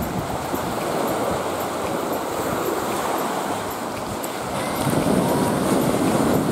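Sea waves washing onto a sandy shore, mixed with wind buffeting the microphone, as a steady rushing noise that grows louder about five seconds in.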